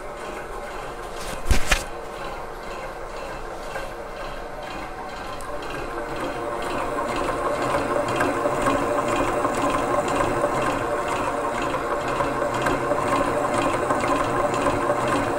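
Innofood KT7600 stand mixer running at speed 6, its motor whirring steadily while the beater creams butter and sugar in the bowl. A single sharp knock comes about a second and a half in, and the whir grows louder after about six seconds.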